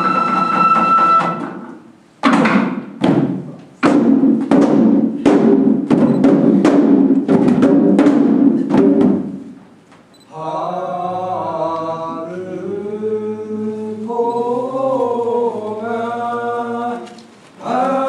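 Shishimai lion-dance music: a bamboo flute plays a held melody, then the dancers' waist drums beat a run of sharp strokes, about two a second. From about ten seconds in, several voices sing long, wavering notes in unison.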